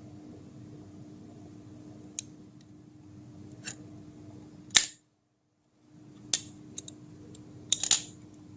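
A handful of sharp clicks from a fibre-optic precision cleaver as the fibre is set in it and cleaved, the loudest about five seconds in, followed by a brief moment of dead silence and a quick double click near the end.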